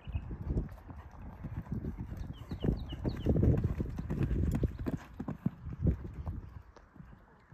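Horse cantering on a sand arena surface: a run of hoofbeats, loudest as it passes close about three to four seconds in, then growing fainter as it moves away.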